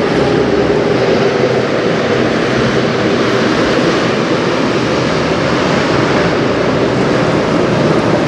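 Engines of the Algoma Innovator, a 198 m Great Lakes bulk carrier, running as its stern passes close by: a steady, loud, low drone.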